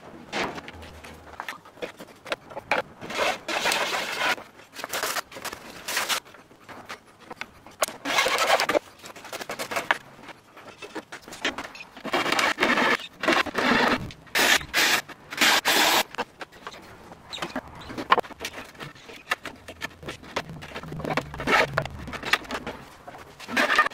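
A hand chisel paring the end of a wooden boat stringer in repeated scraping strokes. Each stroke lasts a second or so, with short pauses between them.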